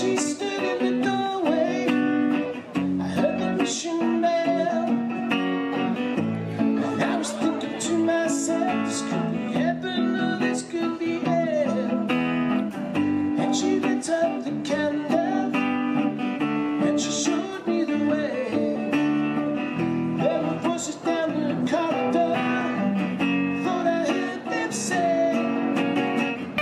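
A small live band playing a song: a strummed acoustic guitar with an electric bass guitar and an electric guitar, at a steady beat.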